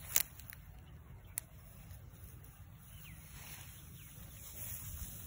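Dog's chain clinking a few times in the first second and a half as the chained dog moves, over a steady low rumble, with two faint short bird chirps later.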